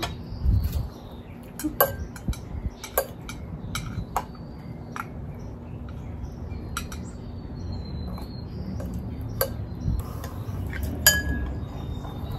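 Eating utensils clinking against ceramic bowls during a meal: a dozen or so separate sharp clinks at irregular intervals, the loudest near the end.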